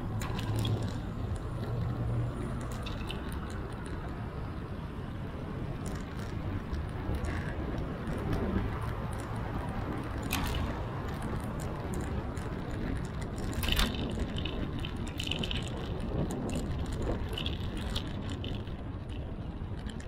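Bicycle riding recorded from a bike-mounted action camera: a steady rumble of wind and road noise, with many small clicks and rattles from the bike over bumps and a few sharper knocks.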